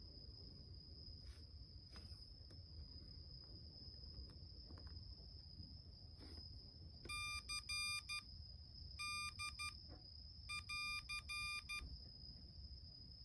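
Morse code beeps from an M5Stack's built-in speaker: a single steady pitch keyed on and off in short and long beeps, in three bursts starting about seven seconds in.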